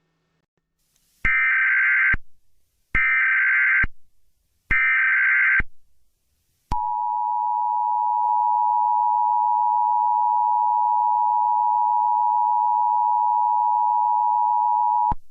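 Emergency Alert System tornado warning opening: three short buzzing bursts of header data, then a long steady two-tone attention signal that cuts off sharply near the end.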